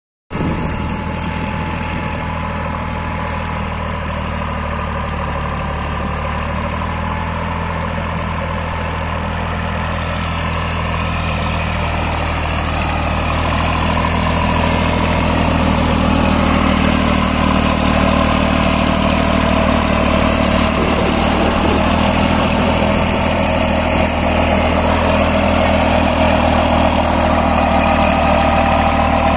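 Massey Ferguson 9500 tractor's diesel engine running steadily under load, driving a rotavator that is tilling dry soil. It grows louder from about halfway through.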